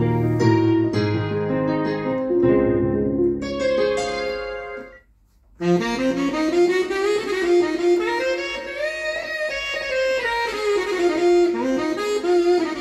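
Korg Krome keyboard played in a demo: a piano-and-FM layered patch sounds struck, decaying notes for about five seconds. After a short pause, a different sustained patch plays a melody with sliding pitch bends between notes, in a string or reed-like tone.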